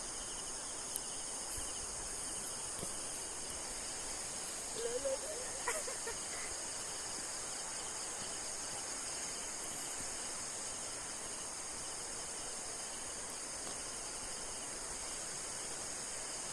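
Steady high-pitched chorus of insects in rural fields. A short rising call cuts through about five seconds in.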